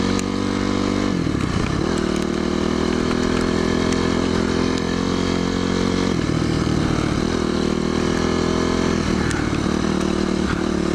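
Dirt bike engine running under throttle while riding, its pitch dropping and climbing back about a second in, again around six seconds, and near nine seconds as the rider eases off and gets back on the gas.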